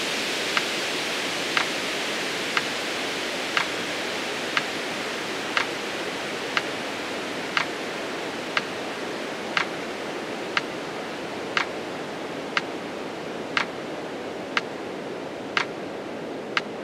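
Metronome ticking once a second, pacing a slow 20-count exhale, over a steady rushing hiss that slowly grows quieter.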